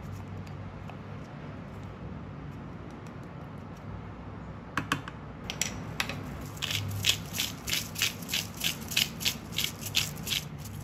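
Hand-twisted spice mill grinding seasoning over a bowl. It gives rhythmic ratcheting clicks, about three a second, starting about five seconds in.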